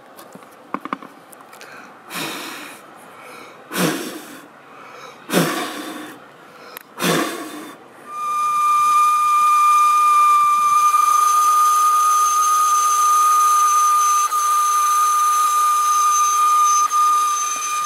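Aluminium chimney (storm) kettle whistling steadily at the boil over a hiss of steam, the signal that the water is ready. The whistle starts about eight seconds in, after a few short rushing hisses.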